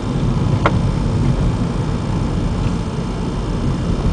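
Steady low road and engine noise of a moving car, heard from inside the cabin, with a single short click under a second in.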